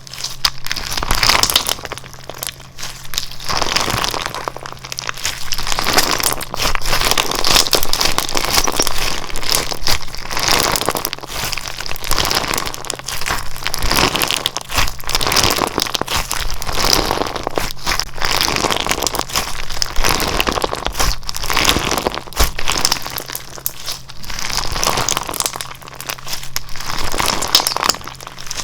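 Slime being squeezed and pressed by hands, giving dense crackling in repeated squeezes every second or two.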